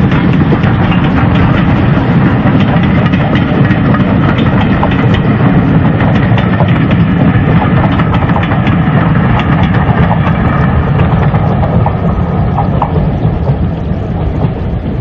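LMS Black Five 4-6-0 steam locomotive hauling a train of coaches past, loud and steady, easing slightly in the last few seconds.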